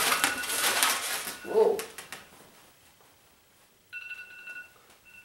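260 latex twisting balloons squeaking and rubbing against each other as they are twisted together. About four seconds in, a phone's reminder alarm starts beeping with a steady electronic tone, stopping once and starting again.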